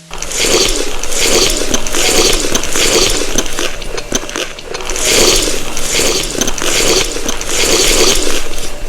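Close-miked chewing of crunchy food, loud crunching in swells about once a second.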